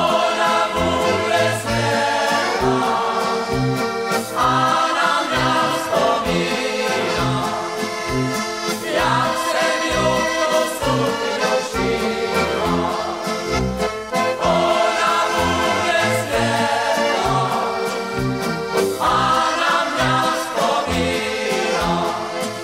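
Moravian folk dance music, a band playing a polka or waltz tune over a steady, regular bass beat.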